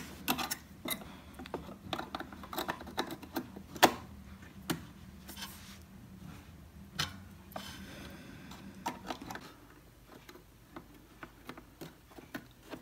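Irregular small clicks and taps of memory modules being handled and pressed into an iMac's RAM slots, with a few sharper clicks as modules seat.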